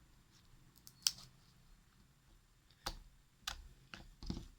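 A few sharp clicks, spread out over the seconds, with a short dull knock near the end, as of small objects being handled.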